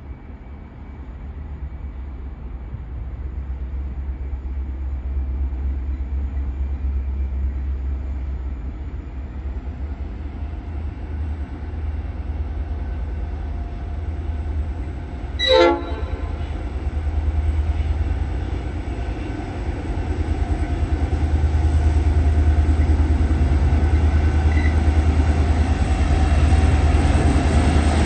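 Diesel freight locomotives approaching, their deep engine rumble growing steadily louder. About halfway through there is one brief, sharp horn toot.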